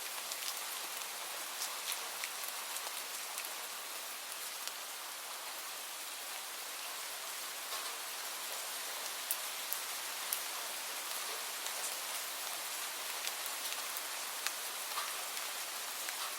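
Light rain falling steadily: an even patter with the crisp ticks of single drops scattered throughout.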